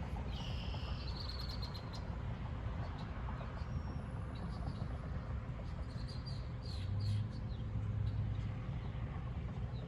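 Birds chirping in short bursts over a steady low rumble of road traffic.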